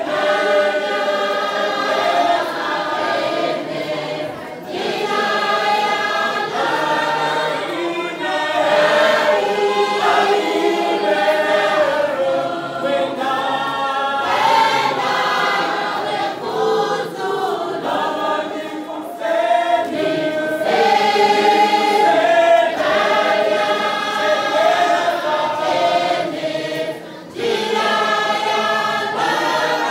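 Large church choir singing a gospel hymn, many voices together, with a short break between phrases near the end.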